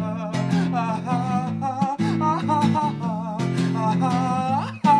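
Acoustic guitar played flat on the lap, plucked and tapped in a steady, ringing low accompaniment. Over it runs a wordless, wavering vocal line with upward scoops.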